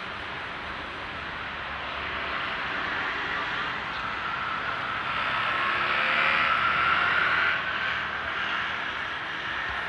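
Town-centre street traffic: the running of cars and motorcycles. One vehicle grows louder and passes close with a steady whine from about five seconds in, then drops away suddenly at about seven and a half seconds.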